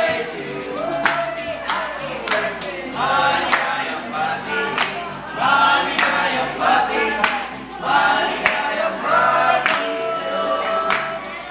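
A group of waiters singing a birthday song together, with a tambourine and hand claps keeping a steady beat.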